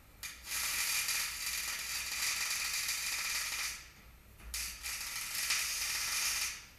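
Electric arc welding: the arc crackles and hisses steadily in two welds, the first lasting about three and a half seconds, then a short pause, then a second of about two seconds.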